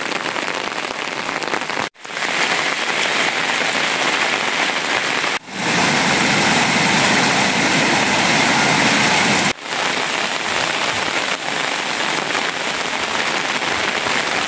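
Steady rain falling, as a continuous hiss of noise. It comes in several short takes that cut abruptly from one to the next, and the middle take, about a third of the way through, is heavier and louder than the rest.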